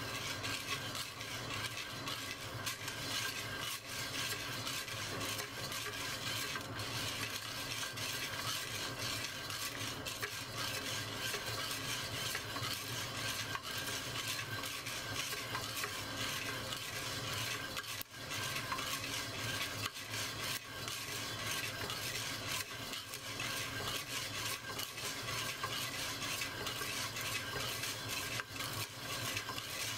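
Coffee beans being stirred in a clay roasting pot: a steady, dense rattle and scrape of beans against the ceramic as they are kept moving over the heat.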